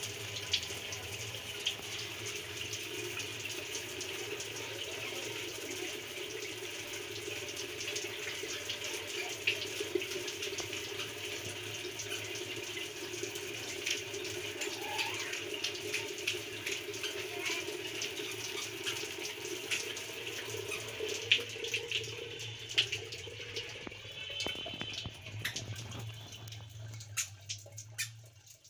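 Water spraying from a homemade shower head made from an LED bulb on a PVC pipe: a steady hiss of spray splashing, with scattered drips and patters. Near the end the spray thins and fades away.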